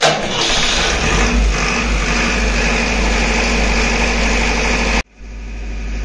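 A 50 kVA diesel generator engine running loud and steady. It cuts off abruptly about five seconds in, and a quieter hum follows.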